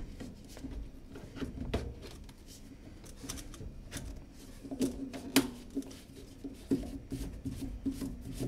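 Plastic sink waste fittings being handled and screwed together: scattered small clicks and creaks as the bottle trap's plastic nut is turned and the trap is adjusted. One sharper click comes a little past halfway.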